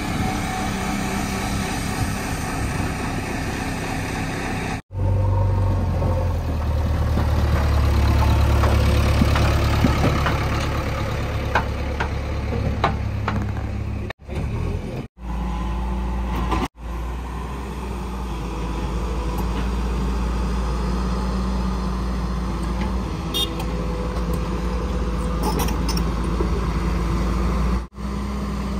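Diesel engines of a JCB tracked excavator and a JCB 3DX backhoe loader running under work, a steady low drone with occasional metallic clanks, in several short clips cut together.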